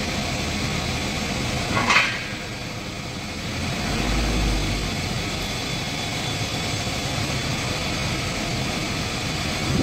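Tadano truck-mounted crane's engine running steadily while it drives the hydraulic boom to hoist a load. There is a sharp knock about two seconds in and a brief low rumble about four seconds in.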